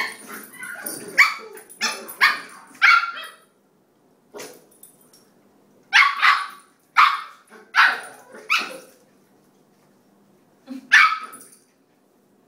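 Puppies barking during rough play, in sharp single barks: a quick run in the first three seconds, another run from about six to nine seconds in, and a final pair near the end.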